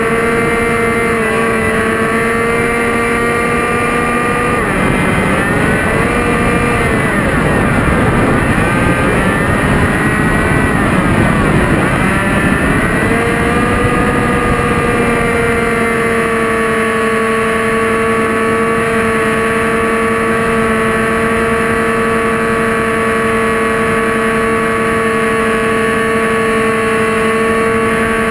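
Delta Ray RC airplane's electric motor and propeller whining at a steady pitch over rushing wind, heard from a camera on the plane. About five seconds in, the whine drops and wavers under a louder rush of air for several seconds, then settles back to a steady pitch.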